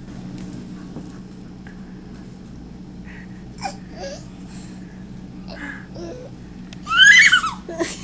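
A baby babbling with a few short, soft sounds, then giving one loud, high squeal that rises in pitch near the end. A steady low hum runs underneath.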